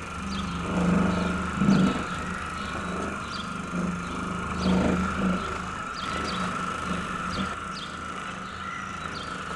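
Electric orbital car buffer with a wool bonnet pad running with a steady hum as it is worked across a truck's hood, swelling louder a few times as the pad is pressed and moved. Birds chirp repeatedly in the background.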